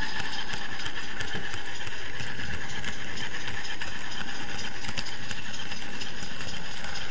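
Sound-fitted model Pannier tank locomotive running, its on-board speaker giving a steady, rapid steam-engine running sound, mixed with the running noise of the pushed camera truck on the model track.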